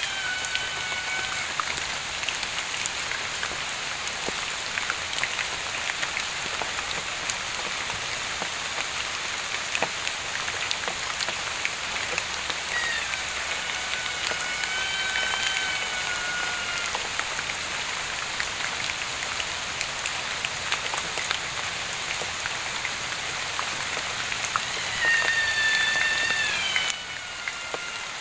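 Steady rain with patters of drops, and an unseen animal's drawn-out, cat-like wailing call that slides down in pitch. The call comes twice, in the middle and near the end, with another ending just after the start.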